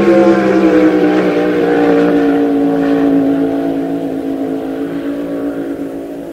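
Inboard racing hydroplane engine running at full throttle through the speed trap, its pitch dropping as the boat passes, then fading away as it runs off into the distance.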